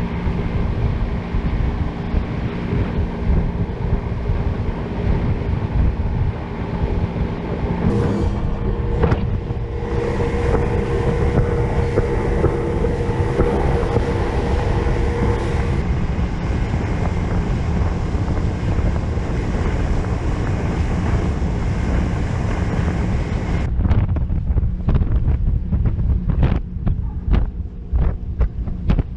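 Engine running steadily under heavy wind buffeting on the microphone, its hum shifting in pitch about eight seconds in. Near the end the hum fades and the wind gusts dominate.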